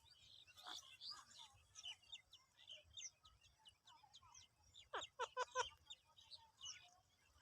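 Birds chirping and calling faintly, many short high chirps, with a quick run of four or five louder calls about five seconds in.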